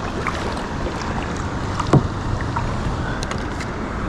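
Steady rushing noise of moving water and wind around a kayak, with one short knock about two seconds in.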